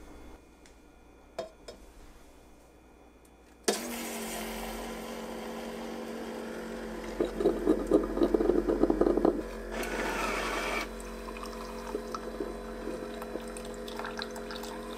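Ninja Hot and Cold Brewed System coffee maker starting to brew about four seconds in: a sudden, loud, steady humming run as it sends water through the coffee grounds. Midway, a few seconds of louder spluttering and a brief higher whir from the built-in milk frother whisking milk in a steel pitcher.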